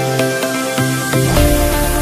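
Electronic background music: sustained synth notes, with a swelling hiss and a deep bass line coming in about two thirds of the way through.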